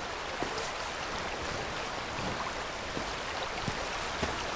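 Steady rushing of a stream flowing over rocks, with a few soft knocks scattered through it.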